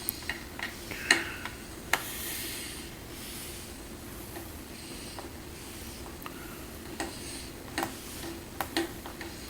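Small Phillips screwdriver working the screws out of a laptop's plastic bottom cover: faint scattered clicks and scrapes over a low hiss.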